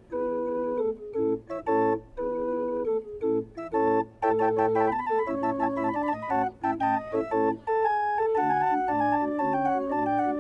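Instrumental background music played on an organ-like keyboard, a melody over sustained chords with short breaks between phrases.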